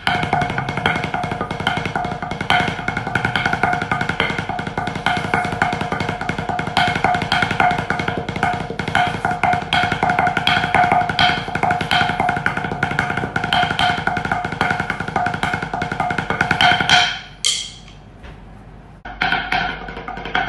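Fast percussion music: rapid clicking drumstick strokes over steady pitched tones. It ends in a loud flourish about seventeen seconds in, goes quiet, and starts again about two seconds later.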